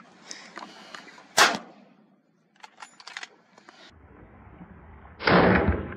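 Two gunshots at a running wild boar. The first is a sharp crack about a second and a half in. The second is a heavier, longer blast near the end, over a low rumble that starts partway through.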